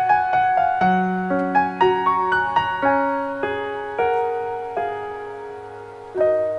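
Piano music: a gentle melody of single struck notes that slows down, with a last chord struck near the end and left to ring.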